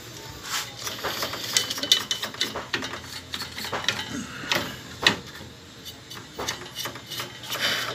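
Irregular clicks, taps and light rattles of a CRT television's circuit board and wiring being handled and shifted about, the sharpest knocks about two and five seconds in.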